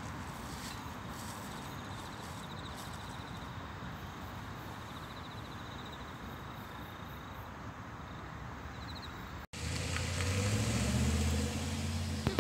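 Outdoor ambience: a steady rushing background with faint insects trilling in short pulses. About nine and a half seconds in it cuts off suddenly and a louder, low, steady hum takes over.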